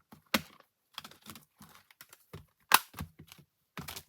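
Irregular clicks and light knocks from craft products being handled on a tabletop, with two sharper knocks, one just after the start and one a little past the middle.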